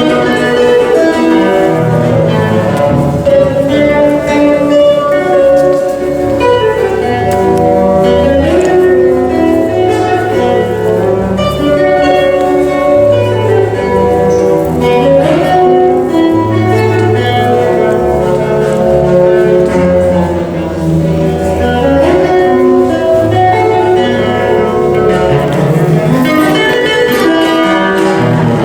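A subway busker's instrumental music, a melody on a stringed instrument with some sliding notes, playing steadily.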